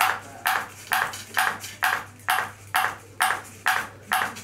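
A ping pong ball bouncing steadily on a robot's clear plastic paddle dish, about two evenly spaced hollow taps a second, each with a brief ring. A low steady hum runs underneath.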